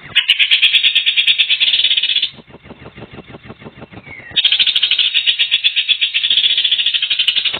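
A bird's rapid, high, buzzy trill: two long runs of fast repeated notes, the first about two seconds long, the second starting a little after the midpoint, with softer rapid notes between them.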